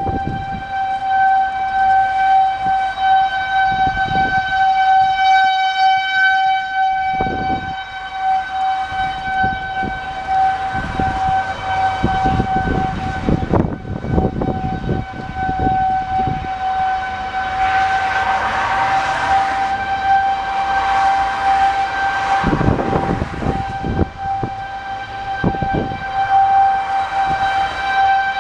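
Outdoor tornado warning siren sounding one steady, unbroken tone, swelling and fading as it carries from about a mile away. Gusts of wind rumble on the microphone, with a louder rush of wind about two-thirds of the way through.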